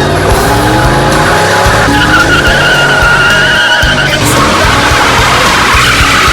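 A car engine revving and accelerating hard, its pitch climbing, then tyres squealing for about two seconds, with a shorter squeal near the end. Music plays underneath.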